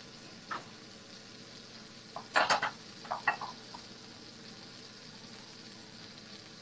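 Butter and minced shallots sizzling steadily in a frying pan as seafood sears. A short run of clinks and knocks from a utensil against the pan comes about two to three and a half seconds in.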